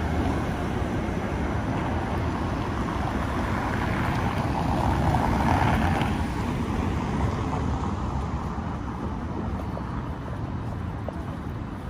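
City street traffic: a steady wash of road noise with a vehicle passing, swelling to its loudest about five to six seconds in and then easing off.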